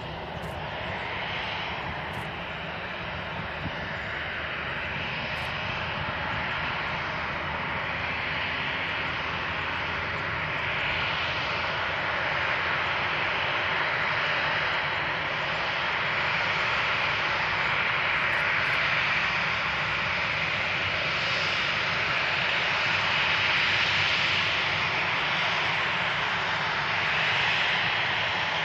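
Boeing 737-800's CFM56-7B turbofan engines running as the airliner lines up and begins its takeoff roll, a steady jet rush that grows gradually louder.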